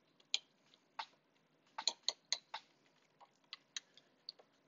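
Light clicks and taps of hard plastic as the pieces of an Omnibot 5402 robot's gripper are handled and fitted back together, with a quick run of about five clicks around two seconds in.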